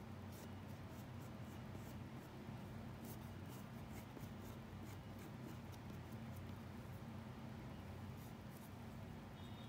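Drawing pencil scratching on paper in short, irregular strokes. A faint steady low hum runs underneath.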